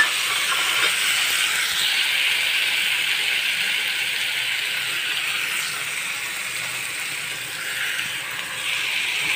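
Chopped onions and tomatoes sizzling in hot oil in a nonstick frying pan: a steady frying hiss that eases a little past the middle and picks up again near the end.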